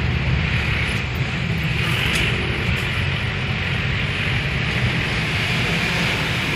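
Steady engine hum and road noise heard inside the cabin of a moving car.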